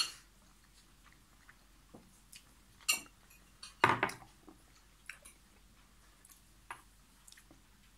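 A person chewing food close to the microphone: quiet mouth sounds with a few short, sharp clicks and smacks, the loudest about four seconds in.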